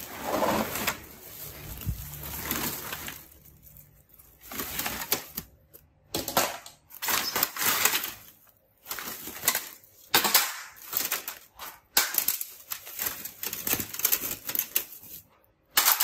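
Green woven plastic sack rustling and crinkling in repeated bursts as it is handled and pulled open.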